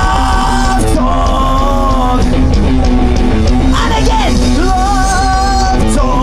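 Punk rock band playing live and loud: electric guitar, bass guitar and drum kit, with singing over the top.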